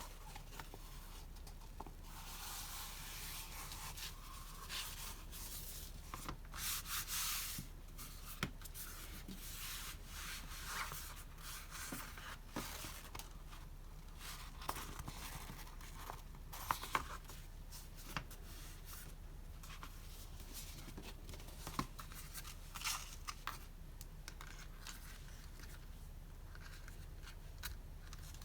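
Paper and packaging being handled by hand: rustling and rubbing in irregular bursts, with a few sharp clicks.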